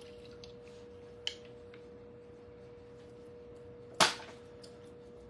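Lemons being squeezed with a handheld lemon squeezer over a bowl: a few faint clicks, then one sharp knock about four seconds in as the squeezer is handled. A steady hum runs underneath.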